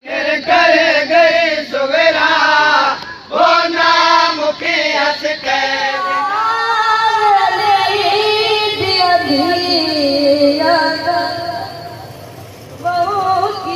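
A high voice singing a manqabat, a Shia devotional poem in praise of Ali, in long ornamented phrases with a wavering melody and brief pauses between lines.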